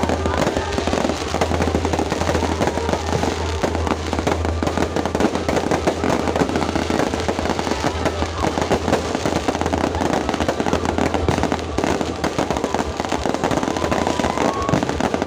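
Fireworks display going off in a continuous barrage of rapid bangs and crackles over a steady low rumble.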